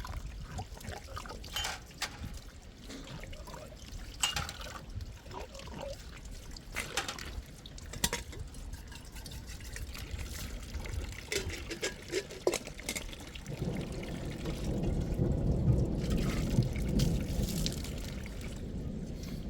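Water trickling and pouring, with scattered light knocks and clicks; the water grows louder and steadier about two-thirds of the way through.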